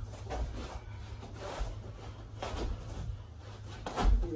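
Feet shuffling and thudding on a floor during kickboxing sparring, with scuffing between the steps. A heavier thud comes near the end as a high kick is thrown.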